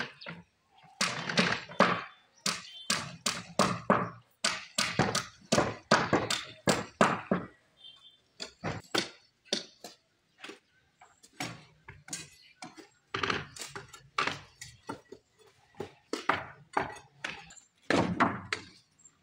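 Shovels thunking and scraping in loose sand, with workers' voices talking over them. The sounds come in quick, irregular strokes, thinning out for a few seconds near the middle.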